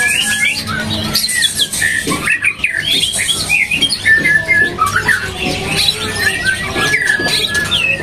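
Caged male white-rumped shamas (murai batu) singing: fast, varied whistles, trills and chirps overlapping one another, with a few longer held whistle notes.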